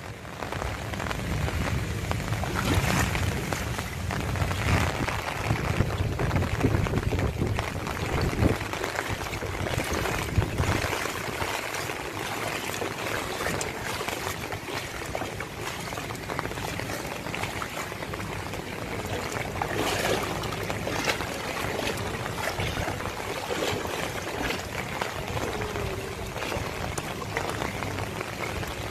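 Rain and floodwater making a steady wash of noise, with a low rumble during the first ten seconds or so.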